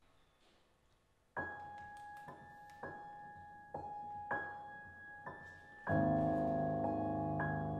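Grand piano playing the opening of a song's introduction, with no voice yet. A single high note, doubled at the octave, is struck about seven times at a slow, uneven pace starting about a second and a half in. A fuller, louder low chord enters about six seconds in and is held under the high notes.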